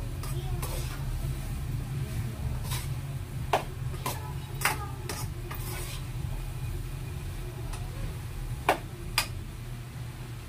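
A spoon stirring bamboo shoots in a frying pan, with several sharp clinks of the spoon against the pan: a few in the middle and two close together near the end. A steady low hum runs underneath.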